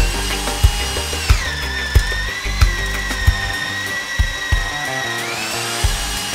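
Bosch GBH 2-26 rotary hammer's motor whining as a wood auger bit drills into a timber post. The pitch drops about a second in as the bit takes the load and rises again near the end as the load eases, over background music with a steady beat.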